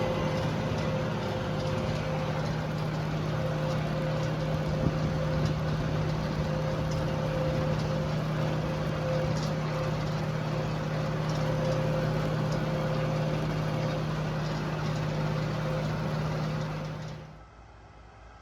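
An engine running steadily with a low hum, cutting off suddenly near the end.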